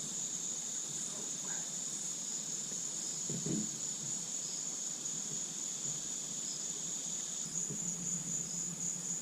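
Chorus of crickets trilling steadily at a high pitch, with a brief faint low sound about three and a half seconds in.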